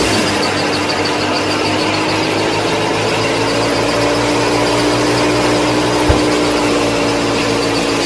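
Small electric motor running steadily with a whine, with one short knock about six seconds in.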